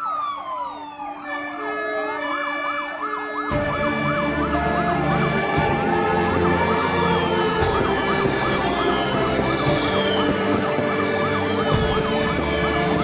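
Several fire-engine sirens sounding together, rapid repeated yelp sweeps over a slower wail. About three and a half seconds in, a deep low rumble suddenly joins, as from the new Volvo FL280's Rumbler low-frequency siren.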